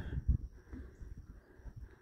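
Faint, irregular low knocks and rustling from a hand-held phone being moved, with the loudest knock shortly after the start, over a faint steady high hiss.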